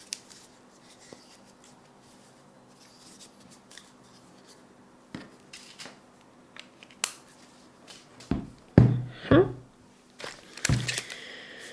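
Handling noise from microphone gear being set up: scattered small clicks and rustles, then a few loud thumps about eight to nine seconds in with a brief squeak among them, and one more thump near the end.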